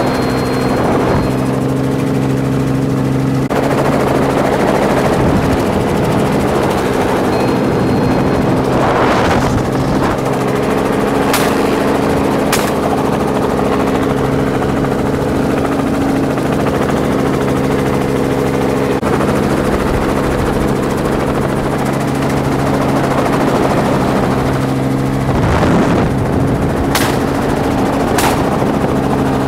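Helicopter flying, heard from inside the cabin, its engine and rotor making a loud, steady hum with several fixed pitches. Two pairs of sharp clicks stand out, one pair near the middle and one near the end.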